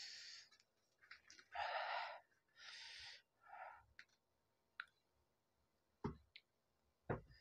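A man's quiet, hissing breaths in and out, four of them in the first four seconds, as he breathes through the burn of the super-hot Jolo chips he has eaten. A few short mouth clicks follow near the end.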